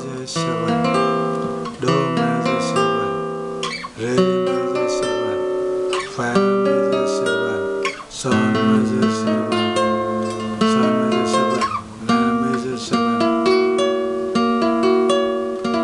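Nylon-string flamenco guitar fingerpicked in arpeggiated chords, moving to a new chord shape about every two seconds, each chord's notes ringing on. The chords are an exercise of A minor 7th and A minor 6th shapes played up the neck.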